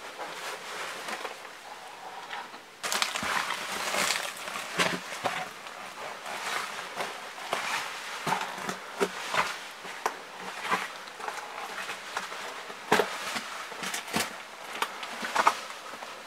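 Irregular crunching, scraping and knocking over a steady hiss, the sounds of someone moving with a handheld camera: shuffling over debris and the camera being handled and bumped. The noise rises abruptly about three seconds in.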